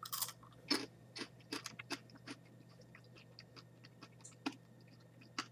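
Chewing and crunching of a boiled-and-dehydrated red palm weevil larva (sago worm): irregular soft crunches, thickest in the first two seconds or so, then a few scattered ones.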